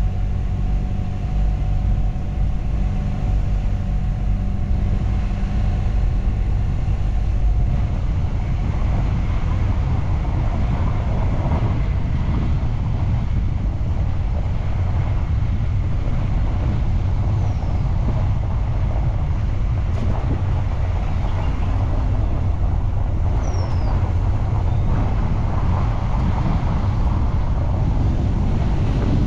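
Motorcycle running on the move, its engine holding a steady pitch for the first several seconds, after which rushing wind and road noise on the microphone mostly cover it.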